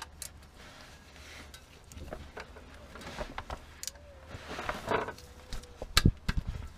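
Light metallic clicks and knocks of a 15 mm combination spanner being fitted to the oil-sump drain plug, with rustle from gloved hands; the sharpest clicks come about six seconds in.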